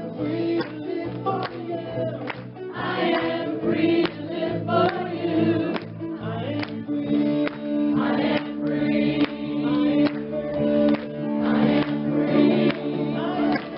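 Gospel music with a choir singing over a steady beat.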